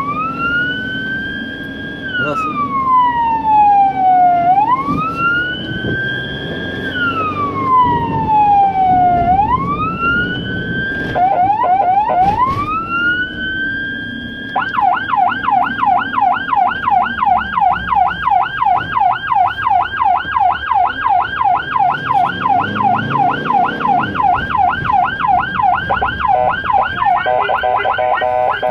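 Ambulance's electronic siren on wail, a slow rise and fall about every four to five seconds, broken by a few quick warbles, then switching about halfway through to a fast continuous yelp. Near the end a second stepped, pulsing tone joins it.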